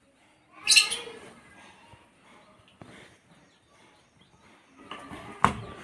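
Newly hatched chicks peeping inside an incubator, with one loud, high peep about a second in. A sharp knock comes near the end.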